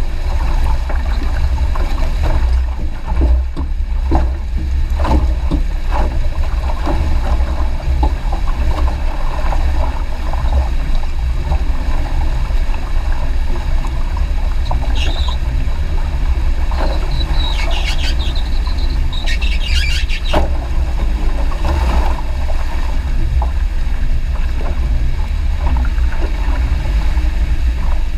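River crossing: water sloshing and a heavy low rumble on the microphone throughout, with a few short high squeals about two-thirds of the way through.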